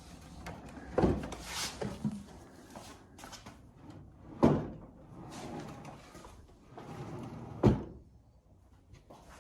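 Wooden drawer being slid in and out on its drawer slides, with sliding noise and a sharp knock as it stops, about a second in, again about four and a half seconds in, and near the end.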